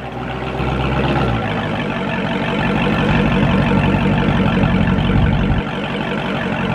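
Dodge Charger Hellcat's supercharged 6.2-litre Hemi V8 idling just after start-up, a steady low exhaust rumble that shifts in tone about a second and a half in and dips slightly near the end.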